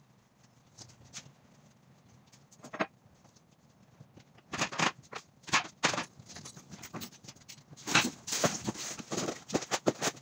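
Irregular knocks, clatter and scraping from a person working in an empty curtainsider trailer: steps on the trailer floor and handling of cardboard sheets. Sparse at first, then busier and louder from about halfway through.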